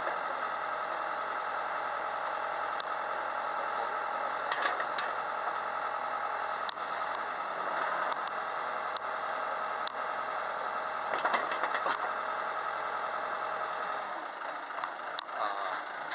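Komatsu hydraulic excavator's diesel engine running steadily, with scattered sharp clicks and knocks. About fourteen seconds in the engine note changes and drops a little in level.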